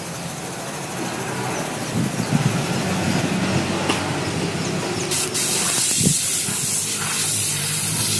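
Compressed air hissing from a hose-fed spray gun, blowing dust off a sanded and sealed carved wooden door; the hiss grows louder and sharper about five seconds in. A motor runs steadily underneath.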